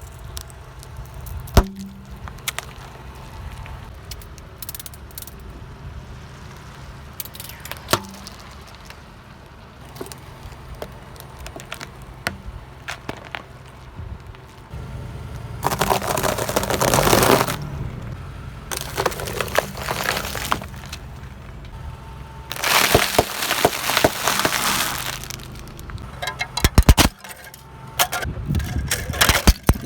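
A car tyre rolling over objects and crushing them, with crackling and cracking breakage and scattered sharp snaps, under a steady low engine hum. The loudest crunching comes in two spells, one about halfway through and one a few seconds later.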